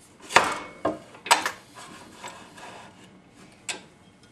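A wooden board knocking and sliding against a drill press table as it is positioned under the bit: several sharp knocks, the loudest near the start, with rubbing in between.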